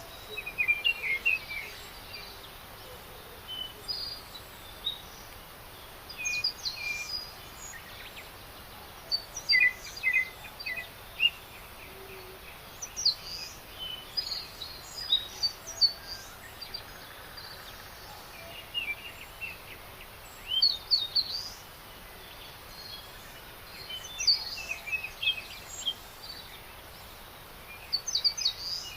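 Several songbirds chirping and calling in short, repeated phrases, overlapping one another, over a steady faint background hiss.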